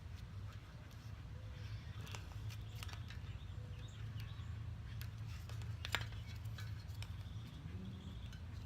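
Scattered light clicks and scrapes of a tool working at the battery cap of a Powertap rear hub, over a steady low hum.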